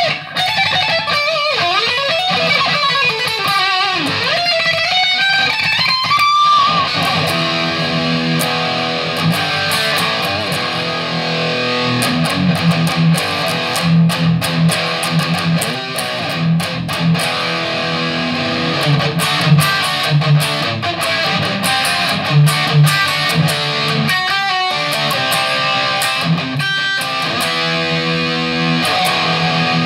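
Electric guitar fitted with a Seymour Duncan JB humbucker, played with an aggressive, bright tone. For about six seconds it plays a lead line with string bends and vibrato. After that it switches to chugging riffs and chords, with short stops between phrases.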